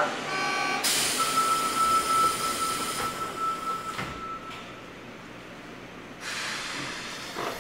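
Cabin sound of a Sendai City Subway 1000N-series train: a steady high tone for a few seconds, a sharp knock about four seconds in, a quieter stretch, then the running noise rising again about six seconds in.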